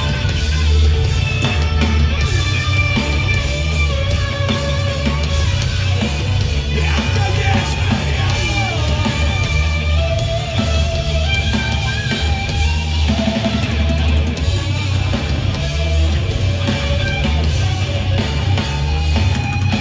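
Live heavy rock band playing an instrumental passage: distorted electric guitars over bass and a drum kit, loud and steady.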